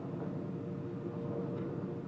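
Steady low background noise picked up by a doorbell camera's microphone, with no distinct events.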